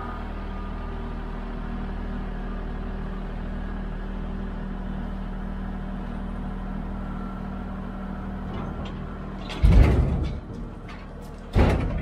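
Kubota compact tractor's diesel engine running steadily while its loader grapple lowers a red oak log. Almost ten seconds in, a loud heavy thud as the log lands in the wooden-sided trailer, then a second thud about two seconds later.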